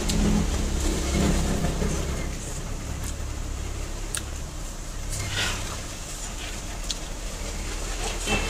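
A steady low rumble, with a few faint clicks and the sounds of someone eating by hand from metal plates.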